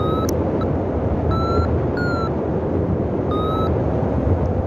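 Strong wind rushing over the microphone during paraglider flight, with a flight variometer giving about four short beeps, each rising slightly in pitch, which signal that the glider is climbing.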